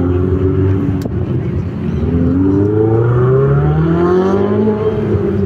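A Ferrari's engine pulling away: a steady low note at first, then the pitch climbing smoothly for about three seconds as it accelerates, easing off near the end.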